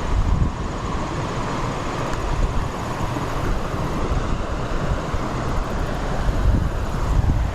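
Steady rushing of flowing creek water, with low wind buffeting on the microphone.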